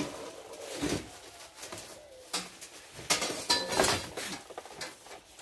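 Metal parts and bolts clinking and knocking as a part is fitted back onto an ATV, with a cluster of clanks about three to four seconds in, some ringing briefly. A pigeon coos faintly in the first couple of seconds.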